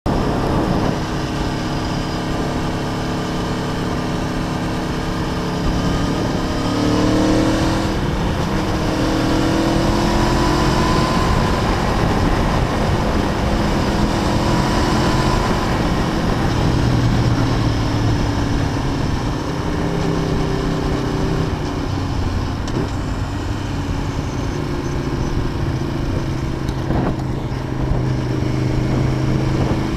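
Aprilia Tuono V4 APRC motorcycle engine running under way. Its pitch rises as it accelerates several times, settling in between.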